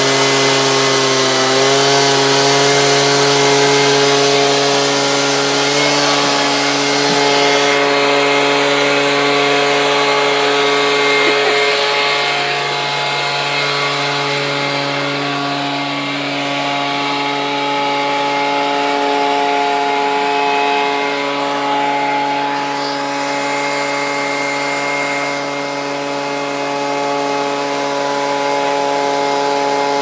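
Stihl BG 86 handheld leaf blower's two-stroke engine running steadily at high speed, a continuous drone over the rushing hiss of air from its tube.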